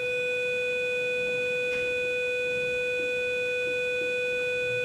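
A loud, steady electronic beep tone held on one unwavering mid pitch.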